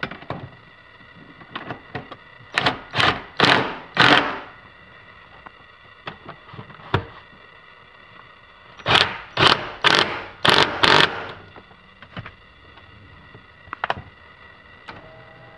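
Ratchet wrench tightening the seat rail mounting bolts: two runs of quick ratcheting strokes, four in a row a few seconds in and five more near the middle, with light clicks of the tool between them.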